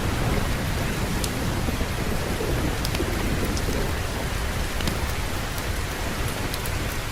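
Steady heavy rain with a low rumble of thunder underneath, and a few scattered sharp ticks.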